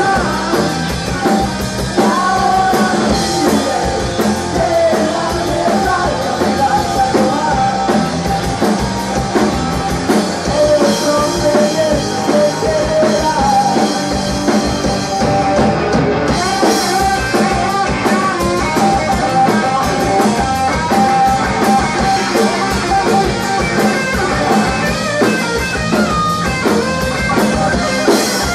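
A rock band playing live: electric guitar, bass guitar and drum kit, with a man singing over them.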